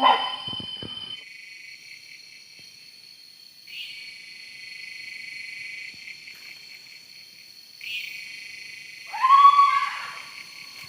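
Night insects droning in steady high tones, swelling in about 4 seconds in and again at 8. About 9 seconds in comes one loud animal call, under a second long, which the campers take for a barking deer (muntjac).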